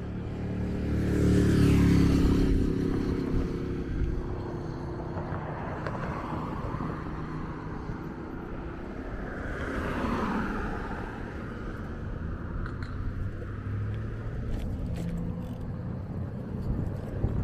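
Road traffic at a city intersection: a car passes loudly about two seconds in, another goes by around ten seconds, with steady traffic rumble in between.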